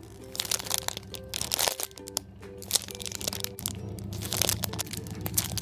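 Clear plastic wrapping crinkling and crackling as a packaged foam squishy donut is handled and squeezed. Soft background music plays underneath.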